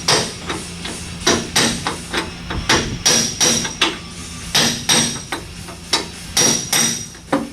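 Hammer blows on steel differential parts of a GM 12-bolt rear end: about twenty sharp, ringing metallic taps at an uneven pace of roughly three a second.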